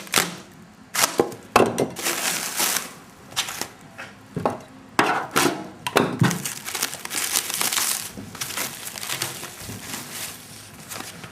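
Packaging being pulled open and handled: plastic wrap and cardboard crinkling and rustling in irregular bursts, with occasional sharper cracks.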